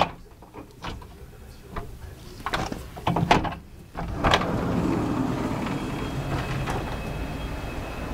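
Cabin balcony sliding glass door: a few sharp clicks and knocks from the latch and handle, then about four seconds in the door slides open and a steady rush of outdoor noise comes in and stays.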